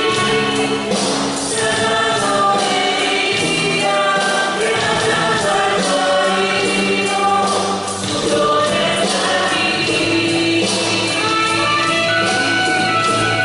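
A choir sings a Christian worship song with instrumental accompaniment and a steady beat.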